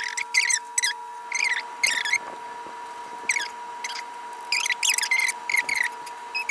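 A songbird singing: runs of short, high chirps, several a second, each sweeping down in pitch, over a faint steady hum.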